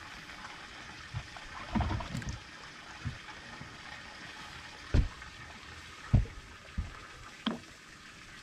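Lake water lapping against a small boat over a steady hiss, broken by several short, dull knocks, the loudest two about five and six seconds in.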